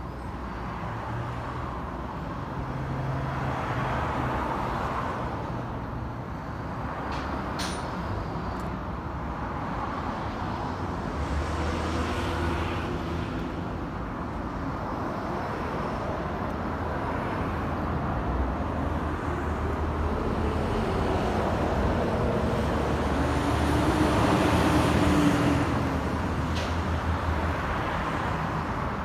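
Road traffic going by: engine hum and tyre noise that swell and fade as vehicles pass, loudest near the end, with a single sharp click about eight seconds in.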